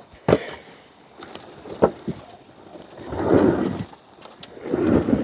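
Metal latches on a Jora JK-270 compost tumbler's lid clicking shut twice, then two longer rumbling rustles about three and five seconds in as the drum is turned by hand and the compost and charcoal inside shift.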